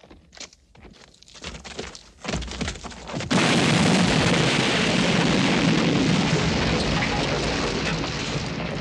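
A carriage blown up in a film sound effect: scattered knocks and a building low rumble, then a sudden loud blast about three seconds in, followed by a long dense rush of noise as debris rains down.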